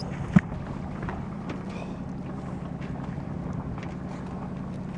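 A boat's engine running with a steady low hum, with some wind on the microphone. A single sharp knock about half a second in.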